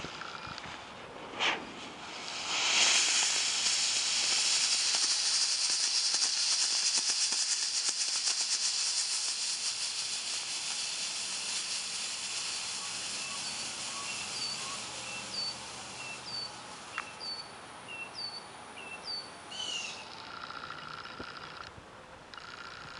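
Big Thunder Giant 2-inch smoke ball venting smoke with a steady, loud hiss that starts about three seconds in after a brief sputter of the fuse, slowly fades and stops shortly before the end.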